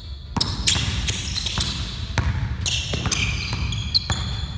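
Basketball dribbled on a hardwood gym floor, a string of bounces at uneven spacing, with short high squeaks from sneakers on the court.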